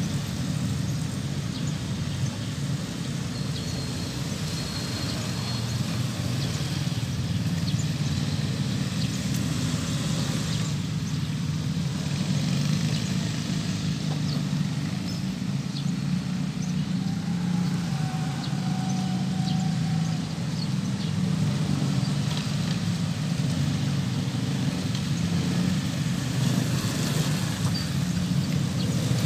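Motorcycles and other road traffic riding over a railway level crossing: a steady low engine hum.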